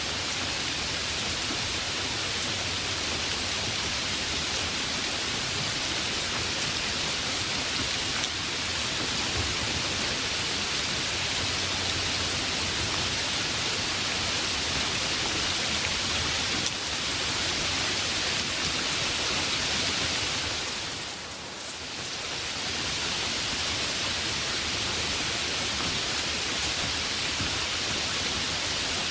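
Heavy rain falling steadily, a dense even hiss of rain on surfaces, briefly easing and swelling back about three-quarters of the way through.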